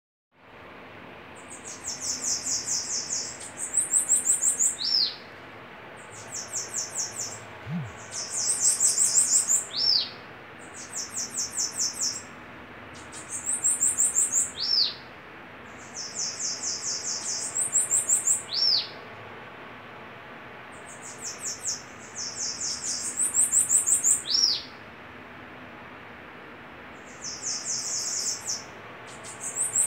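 Caged sibites (bananaquits) singing in a song duel: high, rapid buzzy trills, each phrase ending in a short downward slur, repeated about every four seconds.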